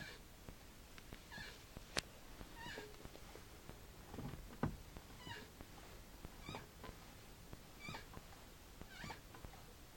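Clutch pedal and gearbox of a 2008 Toyota Corolla squeaking: a short, high, gliding squeak about once a second as the pedal is worked. Two sharp clicks come between them, the louder about four and a half seconds in.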